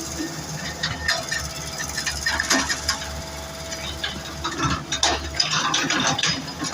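An engine running steadily under repeated metallic clanks and rattles, which come thicker near the end.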